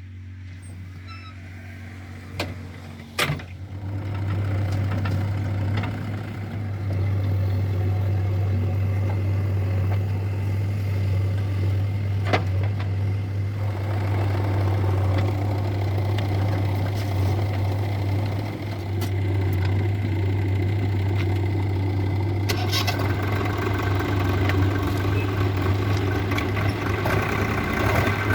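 Heavy diesel engine running steadily, growing louder about three to four seconds in after a couple of sharp clicks, with a single sharp knock near the middle.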